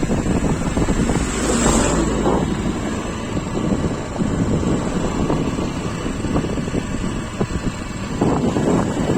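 Wind buffeting the microphone over a steady, loud rushing rumble.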